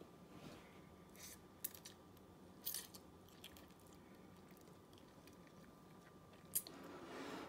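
A child eating instant ramen noodles with a fork: a few faint, sharp clicks of the fork in the bowl, then a louder slurp of noodles near the end.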